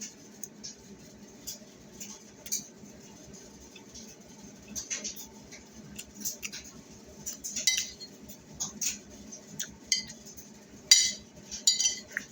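Cutlery clinking and tapping against a dish in irregular short strikes, getting busier in the second half, with the loudest clink near the end.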